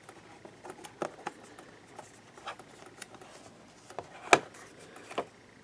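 Scattered soft clicks and taps of fingers handling a smartphone and its cardboard box tray while the phone is lifted out; the sharpest click comes about four seconds in, with another a second later.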